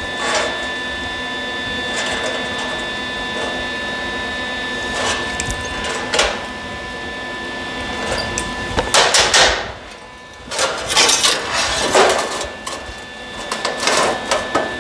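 Sheet-steel panel and locking pliers being handled on a steel workbench: metal clanks and scrapes, a few at first, then busier from about nine seconds on, over a steady shop hum with a thin high whine.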